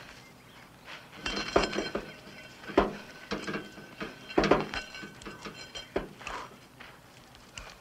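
Irregular metal clinks and clanks, each with a short ringing tail, the loudest about one and a half, three and four and a half seconds in.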